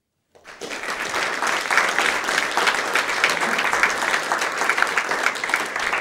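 Audience applauding, swelling up from silence in the first second and then holding steady.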